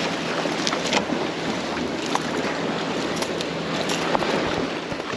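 Sea waves washing against a rocky shore, a steady rush of surf, with a few faint scattered clicks.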